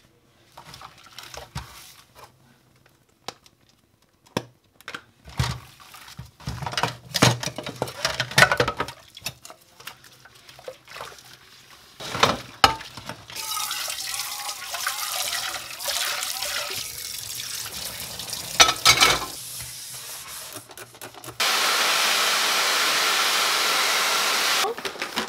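Dishes and a metal pot clattering in a stainless-steel sink, then a tap running steadily while the washing-up clinks go on. Near the end a hair dryer blows for about three seconds, starting and stopping abruptly.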